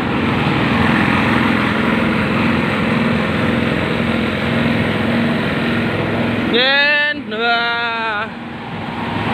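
Odong-odong kiddie ride running, a steady noisy hum with a low pulsing drone. About six and a half seconds in, a high-pitched voice calls out in two drawn-out notes for about a second and a half.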